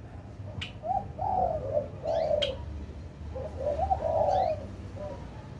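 A dove cooing in several low, warbled phrases, with a few short, thin, high chirps from a small bird in between.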